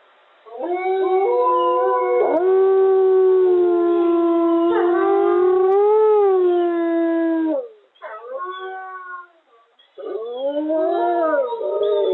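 A pack of captive wolves chorus-howling through a surveillance camera's microphone, several long overlapping howls at different pitches, one rising and falling about six seconds in. The chorus drops away just before eight seconds, with a few shorter calls, then swells again with wavering howls about ten seconds in.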